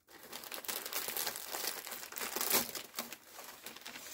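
Gift wrapping paper being torn and crumpled as a present is unwrapped: a continuous crinkling and tearing, loudest about two and a half seconds in.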